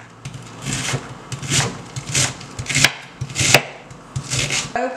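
A kitchen knife shredding a head of cabbage on a cutting board. About six even strokes, each a slice through the leaves ending in a knock of the blade on the board.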